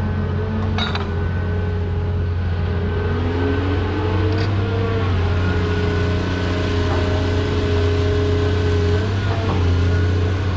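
CAT 330 hydraulic excavator's diesel engine running steadily under load: a low drone with a whine that slides up and down in pitch, and a couple of short knocks.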